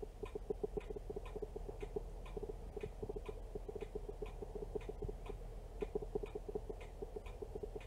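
Camera autofocus motor clicking over and over, about three ticks a second, as it keeps hunting for focus, over a low steady hum.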